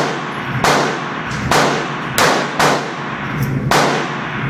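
Walther P22 .22 LR pistol firing five shots at a slow, uneven pace, each a sharp crack that rings off the walls of an indoor range.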